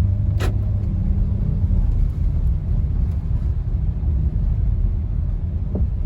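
Steady low rumble, with a sharp click about half a second in and a brief short tone near the end.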